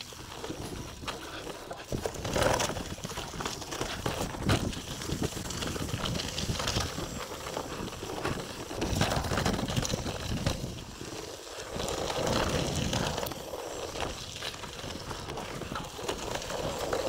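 2018 Trek Remedy full-suspension mountain bike riding down a dirt and rock trail: tyres rolling over loose ground, with irregular knocks and rattles as the bike hits bumps and rocks.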